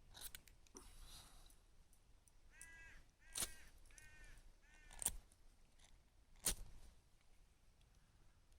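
A crow cawing four times in quick succession, faint and distant, with a few sharp snaps or clicks louder than the calls.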